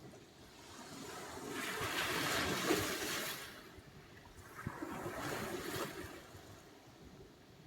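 Sea surf: two waves breaking and washing in, each a swelling rush of water that fades away, the first louder than the second.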